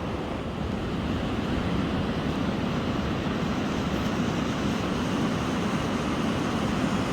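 Steady rushing of wind and surf, an even noise without breaks or distinct events.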